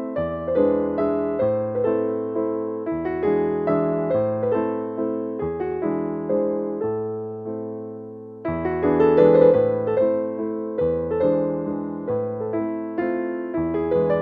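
Background solo piano music, notes and chords over a bass line. Near the middle one chord is held and fades away before the playing picks up again.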